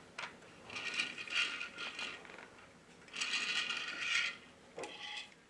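Small plastic toy-vehicle gear mechanism running, ratcheting in two bursts of a little over a second each.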